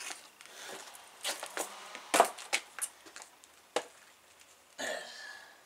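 A few light, irregular knocks and clatters as a Homelite electric chainsaw is picked up and handled, its motor not running. A short rustle follows near the end.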